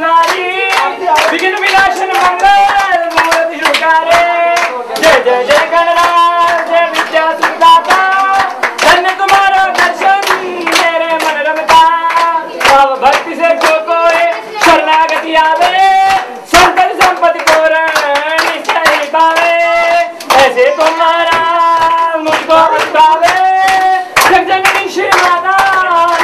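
Devotional singing, one melody line, with steady rhythmic hand-clapping keeping time throughout.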